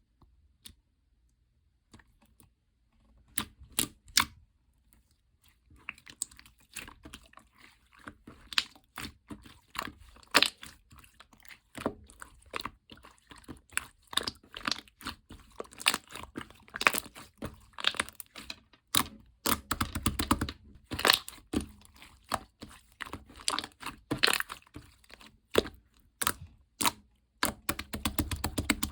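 White all-glue slime being played with, giving sharp clicks and pops: a few scattered ones at first, then a dense, irregular run of them from about six seconds in.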